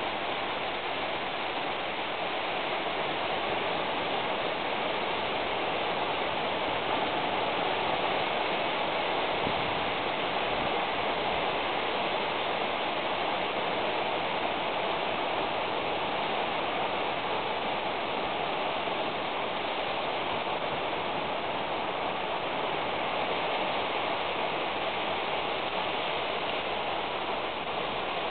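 A steady, even hiss of noise with no distinct events.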